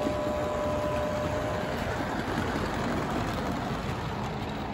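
0 gauge model diesel locomotive and its freight train running past, a steady rumble of motor and wheels on the track. A faint steady whine fades out about two seconds in.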